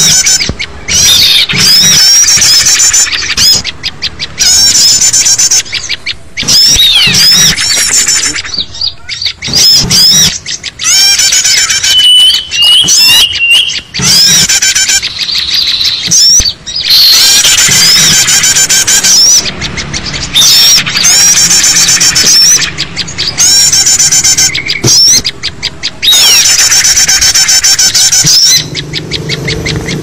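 Loud, dense mix of many small birds calling: overlapping chirps, trills and rapid twittering, with short whistled notes repeated in runs. It is a bird-lure recording of agitated small birds, played to draw wild small birds in.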